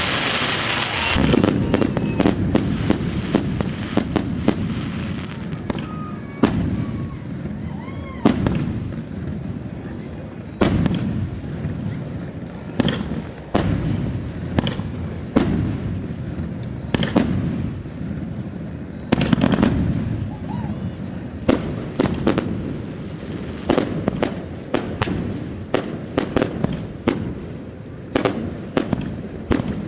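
Fireworks display: aerial shells bursting in a rapid, irregular string of sharp bangs over a continuous low rumble, densest in the first couple of seconds.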